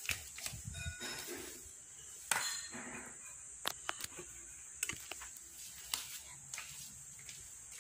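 Soft-bristled broom sweeping a tiled floor: brushing swishes with a handful of sharp clicks and taps scattered through.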